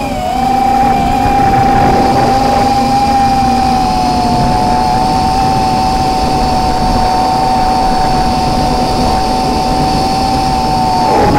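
Eachine X220 quadcopter's brushless motors and propellers whining at a steady high pitch, recorded by the onboard camera, with wind rush underneath. The pitch dips briefly just after the start and climbs near the end.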